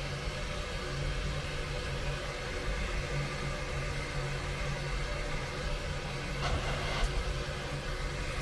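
Cog railway steam locomotive standing, with steam hissing steadily from around its cylinders over a low hum. There is a brief louder burst about six and a half seconds in.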